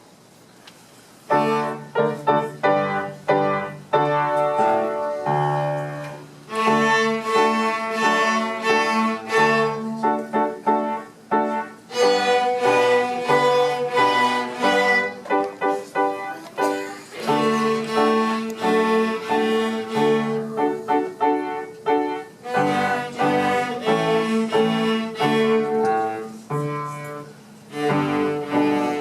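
A section of young students' cellos playing a simple tune together with piano accompaniment, starting about a second in.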